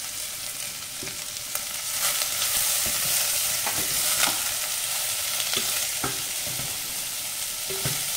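Sliced onions and curry leaves sizzling in hot coconut oil in a stainless steel pressure cooker, stirred with a wooden spatula that knocks against the pot now and then. The sizzle grows a little louder about two seconds in.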